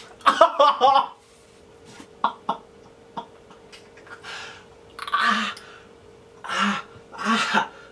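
A man coughing: about four short, harsh coughs in quick succession, starting about four seconds in.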